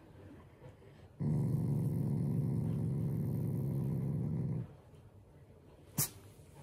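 Black Shiba Inu growling steadily for about three and a half seconds while being stroked on the face, a playful show of affection rather than anger. A single short click follows near the end.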